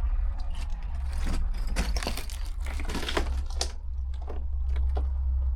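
Footsteps crunching and clicking irregularly over rubble and debris, densest in the middle, over a steady low rumble.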